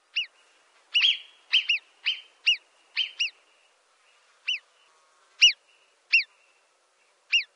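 A bird calling with a short chirp repeated about a dozen times at uneven intervals, each a quick note that rises and falls.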